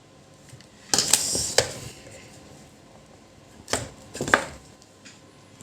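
Hard clicks, taps and a short scrape of tools and small parts being handled on a workbench, with two sharper knocks near the end.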